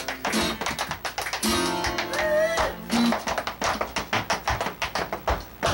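Country-blues ragtime guitar played with rapid tap-dance foot percussion. A held note bends about halfway through.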